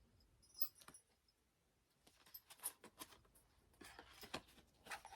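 Faint, scattered light clicks and small ticks of small photo cards being handled and flipped through one after another.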